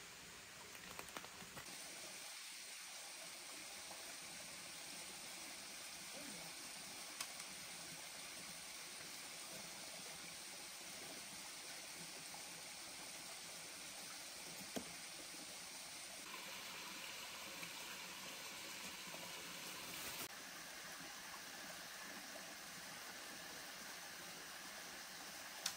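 Forest stream water running and trickling over rocks, a steady soft hiss, with a few faint taps.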